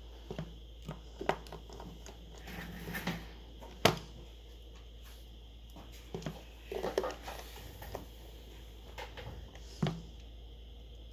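Scattered small clicks and taps of a smartphone and its small parts and tools being handled during reassembly, with a few sharper clicks, the loudest about four seconds in.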